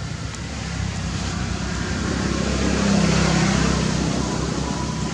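A motor vehicle's engine passing by, growing louder to a peak about three seconds in and then fading.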